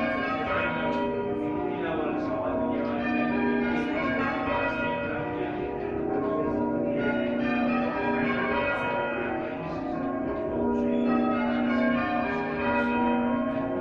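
Church bells rung by a band of bell ringers: a continuous run of overlapping bell strikes, each bell ringing on under the next.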